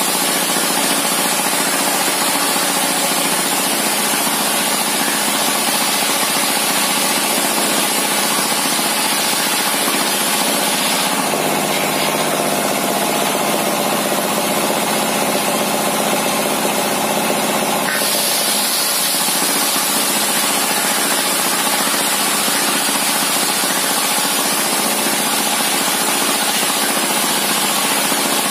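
Homemade table circular saw driven by a diesel engine, ripping a long thick wooden plank lengthwise. The engine and blade run steadily and loudly, with a change in tone between about 11 and 18 seconds in.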